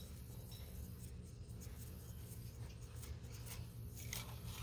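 Faint scratching and rubbing of small RC rock-crawler tyres creeping over rough rock, over a steady low rumble, with a few sharper scrapes near the end.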